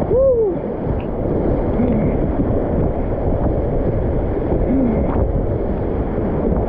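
Whitewater of a river rapid rushing and splashing around a kayak as it runs through, a loud steady rushing noise, with a few short pitched sounds over it, the clearest near the start.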